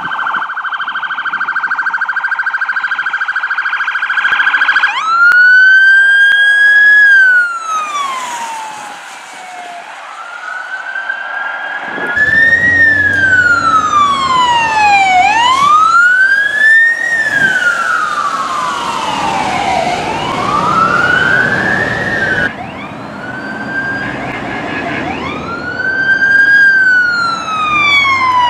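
Police car electronic sirens wailing in long, slow sweeps that rise and fall in pitch, from more than one responding cruiser. For the first five seconds the siren holds a steady high tone instead.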